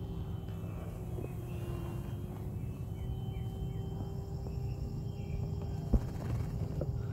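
Jaguar XK8 convertible top's electro-hydraulic pump, fitted with a pressure relief valve, running with a steady hum and low rumble while the soft top raises. There is one sharp clunk about six seconds in from the top mechanism.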